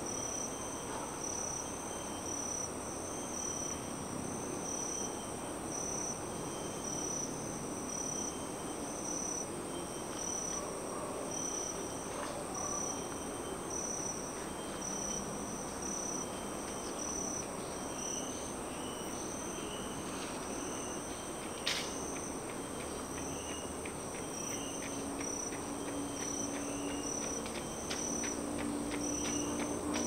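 Tropical forest insects calling: a steady high-pitched drone with a pulsing call repeating about once a second, over a low rumble of highway traffic. Faster ticking joins in during the last third, and a single sharp click comes about two-thirds of the way through.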